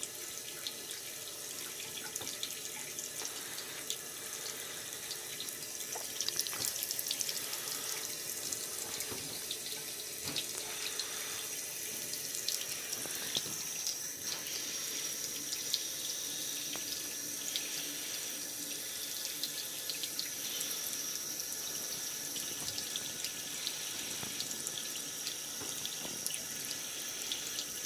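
Bathroom sink faucet running a thin, steady stream of water into the basin.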